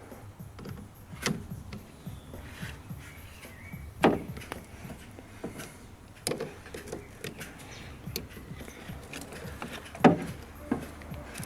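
Hand tools and small metal parts clicking and knocking while screws are being removed, with four sharp knocks a few seconds apart and lighter ticks in between.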